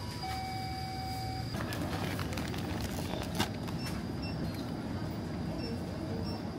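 Convenience-store background hum with crinkling plastic packaging and food packs knocking in a plastic shopping basket, and one sharp click about three and a half seconds in. A steady electronic tone sounds for about a second near the start.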